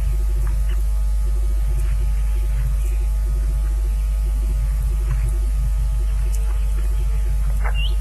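Steady electrical hum with a rhythmic pulsing buzz from the nest camera's audio line. A few faint short chirps sound over it, with one clearer rising chirp near the end.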